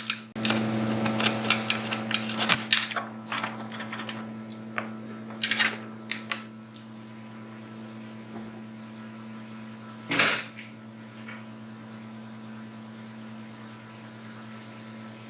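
A drill runs for about three seconds, cutting the head off an aluminium pop rivet with a 3/16 bit, then a few sharp clicks and knocks of metal parts and tools being handled. A steady low hum runs underneath.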